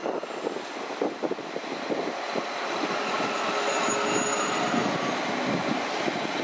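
A Transport for Wales multiple-unit train rolling slowly through a station platform: a steady rumble of wheels and running gear, with a faint whine in the middle.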